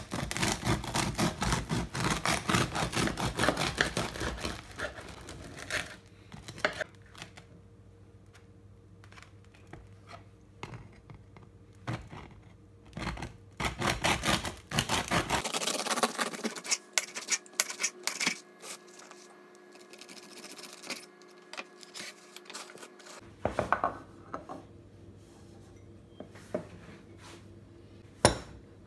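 Serrated bread knife sawing through a crusty round loaf on a wooden cutting board, in quick rasping back-and-forth strokes. There is a long run of sawing at the start and a second, shorter run about halfway through, with light knocks and taps in between.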